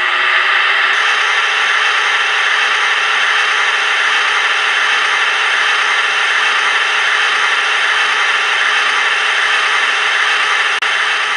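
ESU LokSound V3.5 decoder playing a recording of a modernised LE 6650 electric locomotive with IGBT converter controls: a steady whirring hiss with faint steady tones in it, played through the model's small speaker. A short click with a brief dropout comes near the end.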